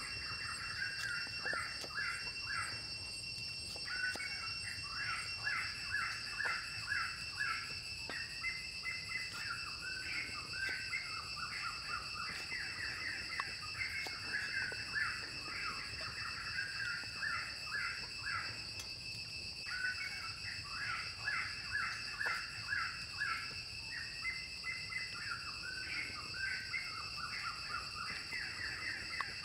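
Forest ambience: a steady high-pitched insect drone under long runs of rapid chirping trills that pause briefly twice. A few faint knocks of a cleaver on a wooden chopping block.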